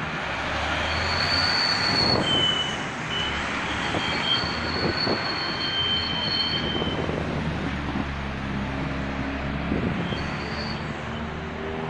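Road traffic moving slowly through a roundabout: the low rumble of a heavy tow truck and passing cars, with several long high-pitched squeals over it in the first half, a shorter one again a little after ten seconds in.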